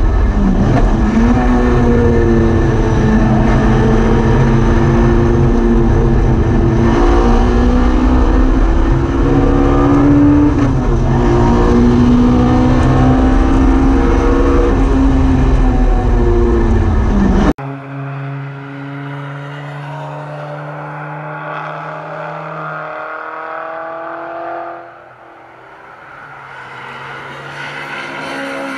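Hillman Imp race car's four-cylinder engine at speed heard from on board, revs repeatedly climbing and dropping over a heavy low rumble. About two-thirds of the way through it cuts to the engine heard more quietly from trackside, a steady note that fades and then swells again as the car comes by.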